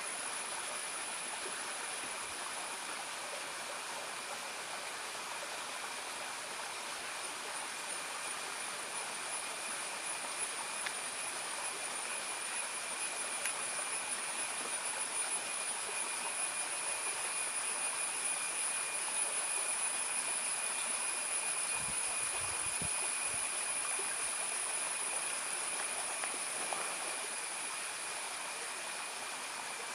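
Steady forest ambience: a continuous high-pitched insect drone with a second, lower whine, both wavering slightly, over an even hiss. A few faint low thuds come about two-thirds of the way in.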